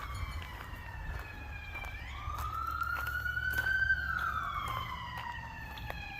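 Emergency vehicle siren wailing: its pitch slides slowly down, sweeps back up about two seconds in, then falls slowly again, over a steady low rumble.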